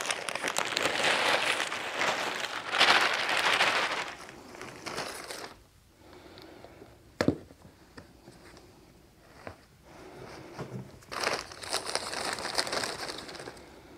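Crinkling of a potting-soil bag as soil is scooped and poured into a plastic storage tub, for about five seconds. Then quieter handling with a single knock, and a second stretch of bag crinkling near the end.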